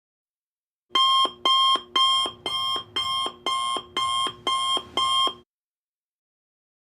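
Electronic alarm beeping: about nine short, evenly spaced pitched beeps, roughly two a second, that stop about five and a half seconds in.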